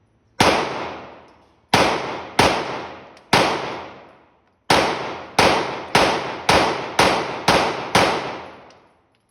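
Draco AK-pattern pistol fired semi-automatically, eleven shots, each followed by a long echoing decay: four spaced a second or so apart, then after a short pause a quicker string of seven, about two a second.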